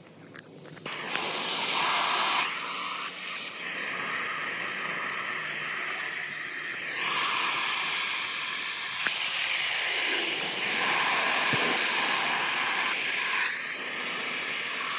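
Gas torch flame hissing steadily while it heats a jumper-cable lug and connector contact to flow more solder, lit about a second in and shut off at the end.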